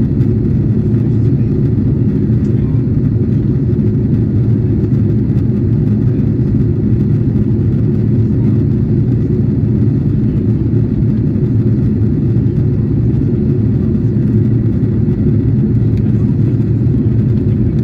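Steady cabin noise inside an Airbus A330-300 airliner descending towards landing: the engines and the air rushing past the fuselage make a low, even rumble with no change.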